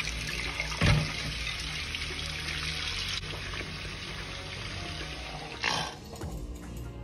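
Kitchen tap running onto a bowl and plate in a stainless steel sink, with one loud knock about a second in. The water sound ends about six seconds in.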